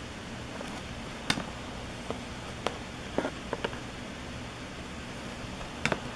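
Football trading cards being handled, giving a handful of short, sharp clicks and taps as the cards are flipped and set down, over a steady hiss.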